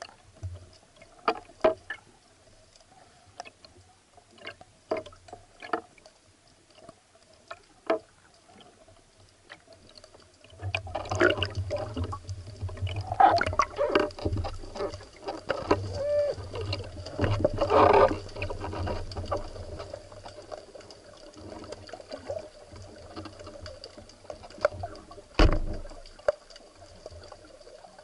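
Underwater sound picked up by a camera on a speargun while a speared barracuda is hauled in. Scattered sharp clicks give way about ten seconds in to a long stretch of clattering, churning water noise with a low rumble as the fish struggles and the line and gun are handled, dying down, then one sharp knock near the end.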